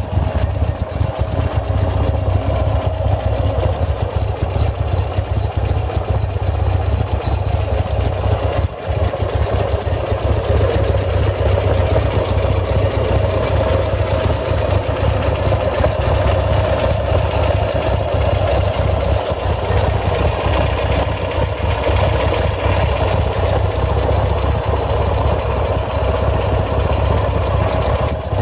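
Buell XB9S Lightning's air-cooled 45-degree V-twin engine idling steadily, with no revving.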